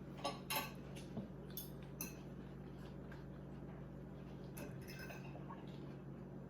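A few light, scattered clicks and clinks of eating utensils against food containers during a meal, over a steady low hum.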